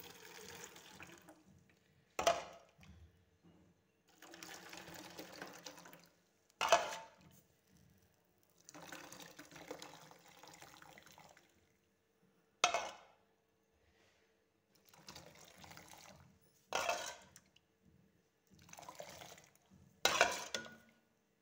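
Hot jaggery water poured in a thin stream through a steel mesh strainer, in about five separate pours of a second or two each. Between the pours come sharp metal clanks of a utensil against the pan, the loudest sounds.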